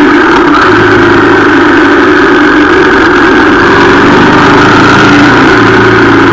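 Harley-Davidson Street Rod 750's liquid-cooled V-twin engine running loud and steady while the motorcycle cruises.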